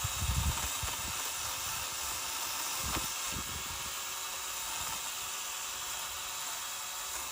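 Kobalt electric pole saw running steadily, its chain cutting a branch.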